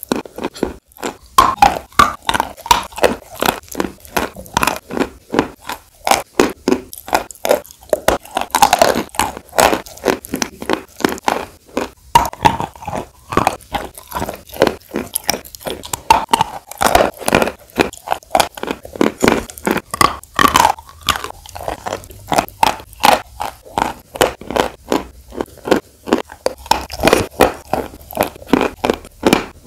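Close-miked crunching and chewing of sawn chalk pieces in wet clay paste: a continuous run of sharp crunches, a few to each second, with wet mouth sounds between them.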